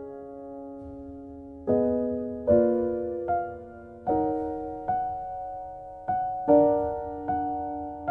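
Gentle background music on piano or electric piano: soft chords struck one after another, each fading away before the next, roughly one a second after a held opening chord.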